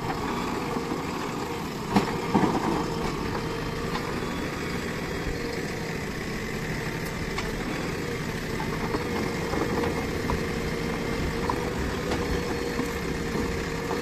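JCB 3DX backhoe loader's diesel engine running steadily while the backhoe digs into a pile of stones and earth, with a steady whine over the engine. A single sharp knock about two seconds in.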